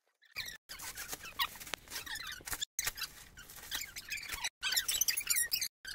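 Gift wrapping paper and plastic packaging rustling and crinkling with small squeaks as presents are unwrapped, in short snippets that cut off abruptly several times.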